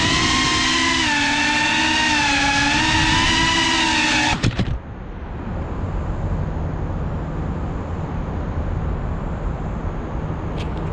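Small FPV quadcopter (GEPRC CineLog 35 ducted cinewhoop) with its propellers whining steadily and wavering slightly in pitch as it hovers. About four seconds in, the motors cut off abruptly with a few clicks, leaving a steady outdoor rumble.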